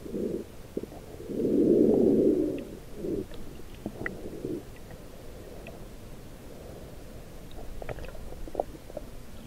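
Muffled underwater sound from an Activeon CX action camera in its waterproof housing: low rumbling and sloshing of water, with one loud surge from about one and a half to two and a half seconds in and scattered small clicks and knocks.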